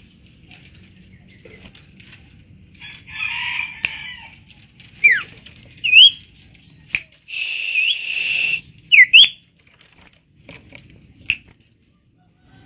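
Common iora (sirtu/cipo) calling: two harsh rasping chatters, with sharp downslurred whistles and short upslurred notes in between. A few sharp clicks are also heard.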